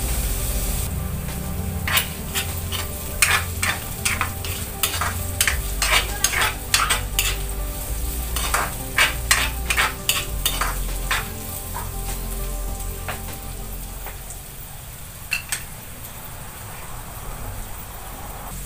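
Carrots sizzling in hot oil in a frying pan, stirred with a spatula that scrapes and clatters against the pan in quick strokes. After about ten seconds the stirring stops and mostly the sizzle is left, with one or two more clinks.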